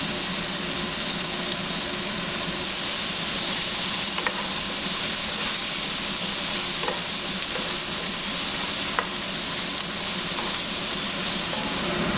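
Crayfish sizzling as they are stir-fried in a hot pan: a steady hiss, with a few faint ticks of the utensil against the pan.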